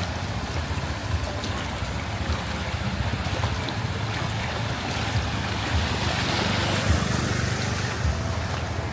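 Street traffic driving through floodwater: a steady wash of water and engine rumble, swelling as a vehicle passes about six seconds in.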